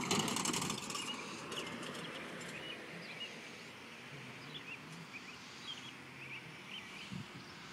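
A car driving past over the crossing, loudest at the start and fading within about two seconds, then birds chirping over a faint steady background.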